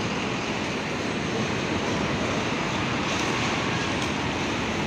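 Diesel engine of a coach bus running steadily as the bus moves slowly past close by.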